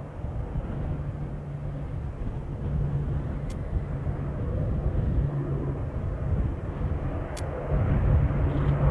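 Two four-engined Avro Lancaster bombers flying past in formation: the steady, deep drone of their piston engines, growing somewhat louder near the end.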